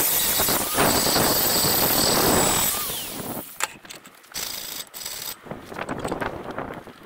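Angle grinder grinding steel on the worn garage door opener trolley clamped in a vise, a steady high whine over the grinding noise. About three seconds in it is switched off and spins down, followed by quieter scattered clicks and knocks.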